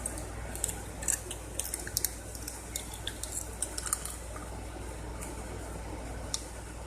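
Tinfoil crinkling and crackling as it is handled and reshaped, in a cluster of sharp crackles over the first four seconds and one more near the end, over a steady low hum.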